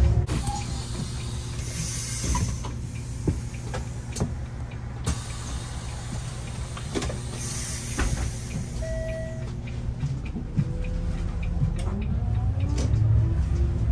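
Inside a city bus: the drivetrain's pitch falls as the bus slows, then it runs steadily over a low rumble, with two short hisses and a brief beep. About ten seconds in, a rising whine comes as the bus pulls away again.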